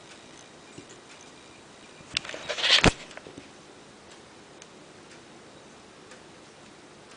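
Golden retriever puppy hiccuping, heard as faint, irregular small ticks, with a brief louder rustling clatter about two to three seconds in.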